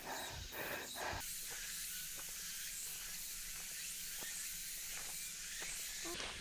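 Steady high-pitched hiss of summer forest ambience on a mountain trail, with a few faint taps.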